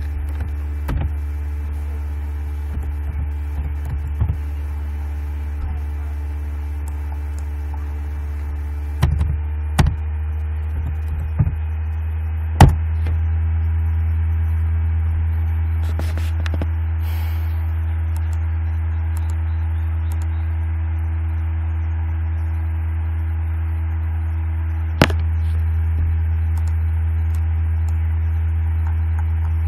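A steady low hum, with a cluster of sharp keyboard and mouse clicks about a third of the way in, the loudest near the end of that cluster, and one more click later.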